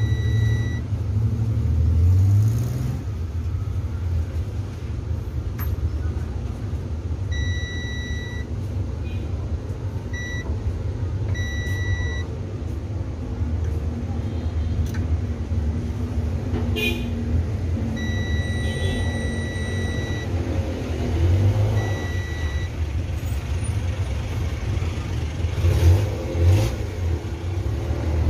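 Digital multimeter's continuity buzzer beeping on and off, about six times, from short blips to one beep of about two seconds, as the probes touch the compressor terminals; the beep marks continuity, taken as the sign of motor windings shorted to ground. A steady low rumble underlies it.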